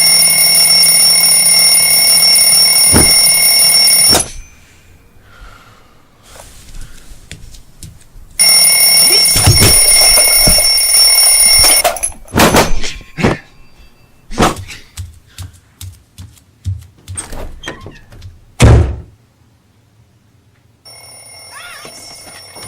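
Electronic alarm ringing with a loud, steady high-pitched tone. It sounds for about four seconds and cuts off suddenly, then sounds for about another four seconds. Between the rings come scattered clicks and knocks and one loud thump, and the alarm starts again faintly near the end.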